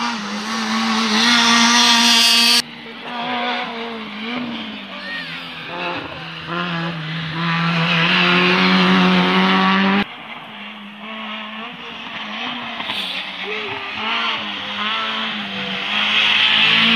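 Rally cars racing past on a tarmac stage, one after another, their engines revving hard and rising and falling in pitch through gear changes. The sound breaks off suddenly twice as one car's pass gives way to the next.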